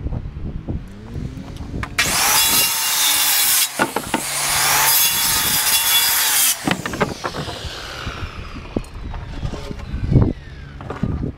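DeWalt circular saw spinning up with a rising whine and crosscutting framing lumber in two passes of about two seconds each, then its blade winding down with a falling whine. A few sharp wooden knocks follow as boards are handled.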